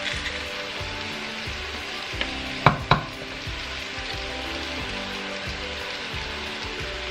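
Diced courgettes and peppers sizzling steadily in a pot. Two sharp clacks about three seconds in stand out above the sizzle.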